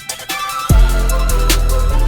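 Background electronic music with a drum beat: deep bass kicks and sharp hits over held synth notes.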